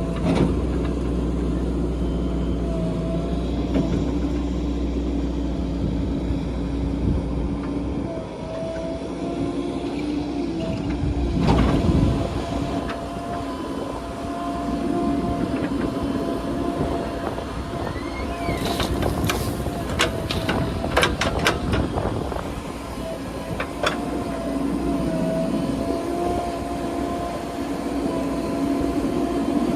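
JCB 3DX backhoe loader's diesel engine running steadily as it works. A heavy knock comes about twelve seconds in, and a quick cluster of sharp clanks and rattles follows several seconds later.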